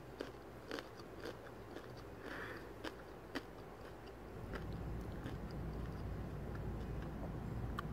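A crisp corn tostada being bitten and chewed, with scattered sharp crunching crackles. A low steady hum comes up in the background about halfway through.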